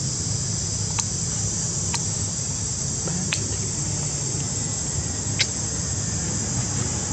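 Steady high-pitched insect chorus over a low rumble, with a few sharp clicks.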